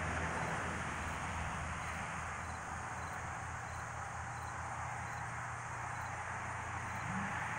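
Evening outdoor ambience: insects chirping faintly and regularly, about two chirps a second, over a steady low hum and hiss.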